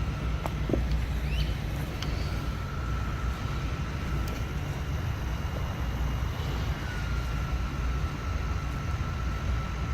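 Steady low outdoor rumble with a faint, steady high-pitched whine and a few light clicks.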